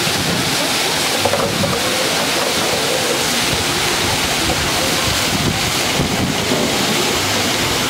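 Steady rushing of an artificial waterfall cascading down a rock face into a shallow pool.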